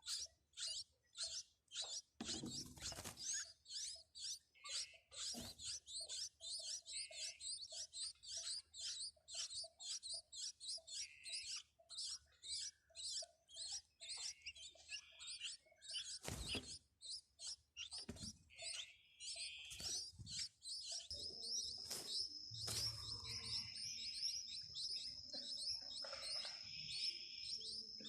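Sparrow chirping, a fast steady series of short high chirps at about three a second. About three quarters of the way through, a thin steady high-pitched tone comes in under the chirps.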